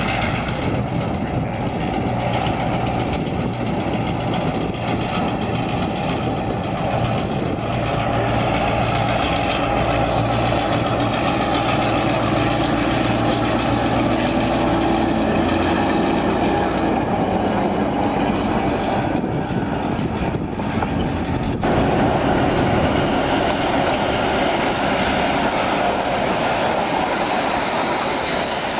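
Victorian Railways T-class diesel locomotive T334 running past at low speed, its diesel engine giving a steady hum. About two-thirds of the way through, the sound cuts to a train headed by steam locomotive K163 rolling past on the rails.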